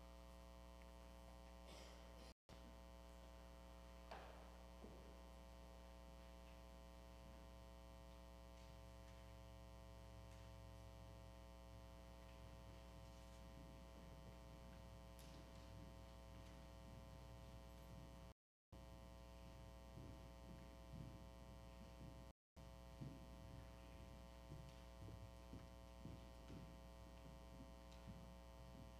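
Near silence with a steady electrical mains hum, broken by a few faint knocks and rustles. The audio cuts out completely three times for a moment.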